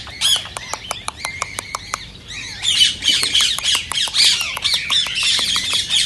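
Indian ringneck parakeet chattering and squawking. A quick run of clicking chirps lasts about two seconds, then gives way to a dense stream of high, shrill squawks and chirps.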